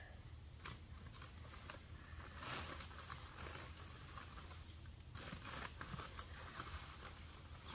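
Dry maple leaves rustling and pattering as they are tipped from a riding mower's grass-catcher bin into a paper yard-waste bag, in two spells about two and a half seconds in and again about five seconds in, with small clicks between.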